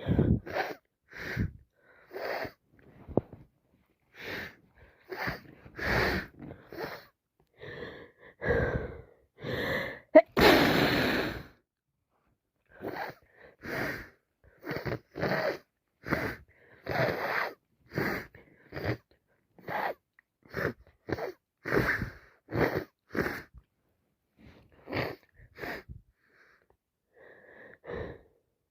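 A person with a heavy head cold breathing in short, wheezy gasps, over and over, as a sneeze builds. About ten seconds in comes one loud, longer sneeze.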